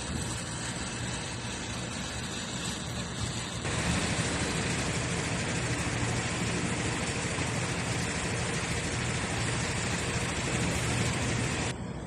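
A machine or power tool runs steadily for about eight seconds, switching on about four seconds in and cutting off near the end, over a steady low workshop hum.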